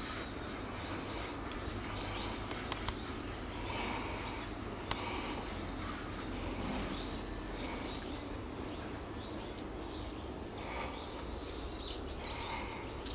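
A flock of small songbirds calling: many short, high chirps overlapping throughout, with a few sharp clicks among them.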